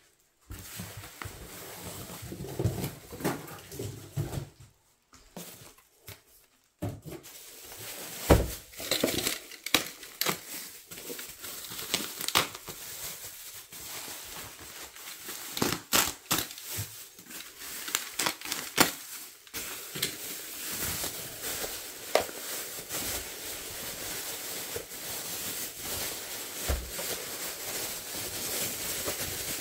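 Plastic bubble wrap being unwrapped by hand, crinkling and rustling with scattered sharp crackles. There is a brief lull about five seconds in, and the crinkling grows denser and steadier in the second half.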